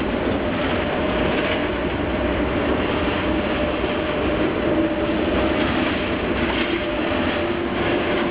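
Z 20500 double-deck electric multiple unit pulling out and accelerating: steady wheel and traction noise with a faint electric whine that rises slightly near the end.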